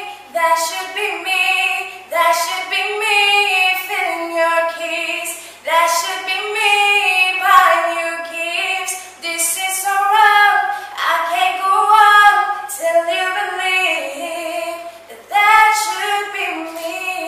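A woman singing solo without accompaniment, in phrases of held notes with vibrato; the last phrase ends on a long held note.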